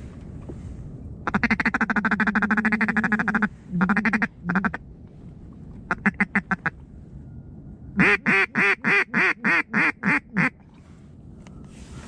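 Mallard duck call blown in runs: a long fast rattling chatter, two short bursts, then a string of about eight loud quacks, roughly three a second, near the end.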